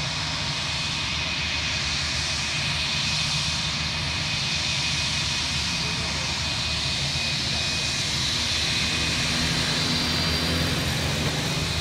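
Jet airliner's engines at takeoff power during the takeoff roll: steady engine noise with a thin high whine, growing a little louder toward the end.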